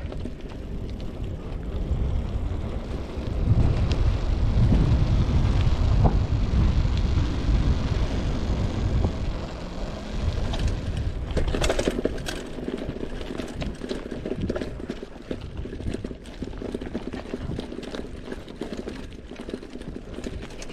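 Mountain bike rolling over a loose, rocky gravel track: tyres crunching on stones and the bike rattling, with a rumble of wind and vibration on the chest-mounted camera. The rumble is loudest from about three to ten seconds in, and there is a short cluster of knocks and rattles around the middle.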